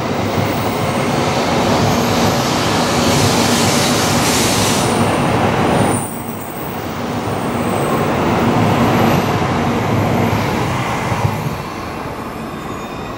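Tokaido Shinkansen bullet train running out of the station past the platform: a steady rush of wheel and motor noise that eases off near the end as the last cars clear.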